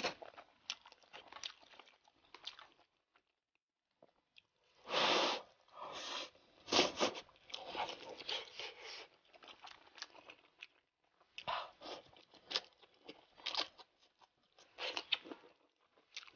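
Close-miked chewing of a meat-stuffed fried gluten puff: wet mouth clicks and smacks in bursts, with a short pause about three seconds in.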